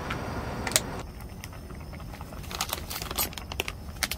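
Plastic bag crinkling as sliced rice cakes are tipped out of it into a simmering stew, with a scatter of sharp clicks and ticks, busiest in the second half.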